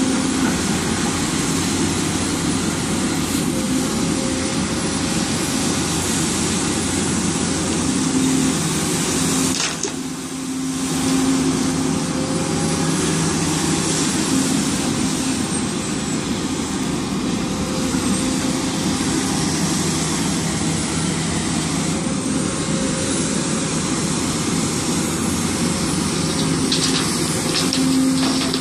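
Hidromek HMK300LC-3 crawler excavator's diesel engine running steadily as it works, a dense drone with a few steady low tones. The sound dips briefly about ten seconds in.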